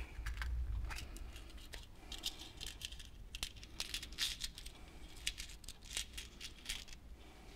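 Faint, irregular small clicks and crinkles of a small packet of fishing hooks being opened and handled.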